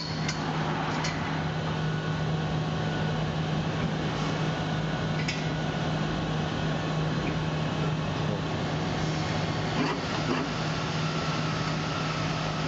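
Electric winch of a bell-lift kiln running steadily with a low hum, raising the kiln body on its lifting pipes, with a few light clicks.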